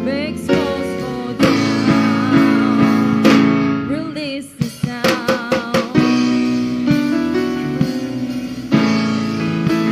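Youth choir singing a worship song with live band accompaniment, guitar and drums, with a quick run of drum hits about five seconds in.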